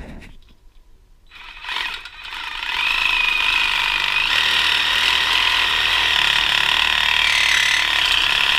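Reciprocating saw (Sawzall) starting about a second in and running steadily, cutting through the outer shell of an old rear subframe bushing on a BMW E46 so that the bushing can be collapsed and knocked out.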